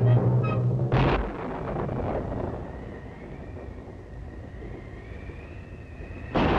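Cartoon storm sound effects: music breaks off at a sharp crash about a second in, then wind blows with a faint whistling tone that slowly rises, and a second sharp crash comes near the end.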